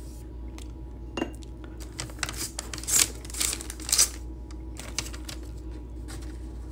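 Hard objects handled and set down on a tabletop: a sharp clink about a second in, then a few seconds of rustling and scraping, loudest around three and four seconds in.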